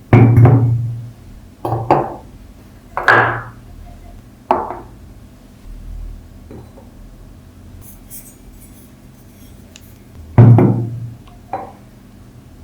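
A series of separate knocks, each with a short ring, irregularly spaced with a long gap in the middle. The loudest comes right at the start and another about ten seconds in.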